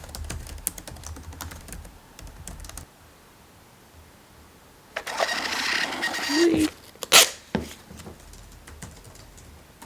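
Typing on a computer keyboard: a run of quick key clicks for about three seconds, then after a pause a brief hissing rush and a few sharper single clicks.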